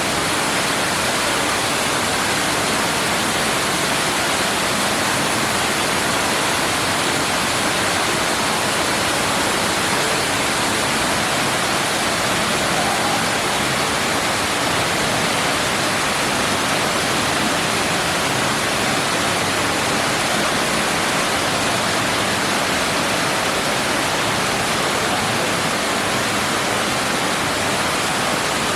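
Man-made indoor waterfall: water dropping and rushing into its pool, a steady, unbroken rush.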